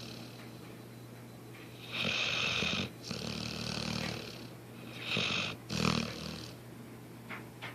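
Dog snoring in its sleep: two loud rasping snores, about two seconds and five seconds in, with quieter breathing between them.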